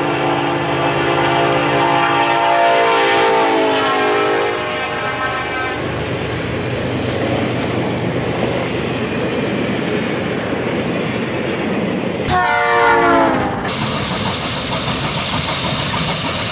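Diesel locomotive air horn sounding long as a train passes, its pitch dropping as it goes by, over the low hum of the engine. The steady noise of the train rolling along the rails follows. About twelve seconds in, a second, shorter horn blast also falls in pitch.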